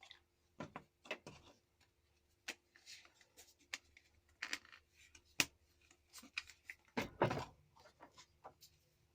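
Irregular clicks, taps and short rustles of small objects being handled, with a longer scuffing rustle about seven seconds in.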